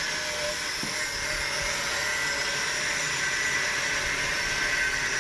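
A small electric motor running steadily with a high-pitched whine.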